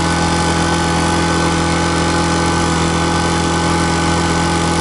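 Small engine running steadily at a constant speed, powering a high-pressure washer, with an unchanging hum of several fixed pitches.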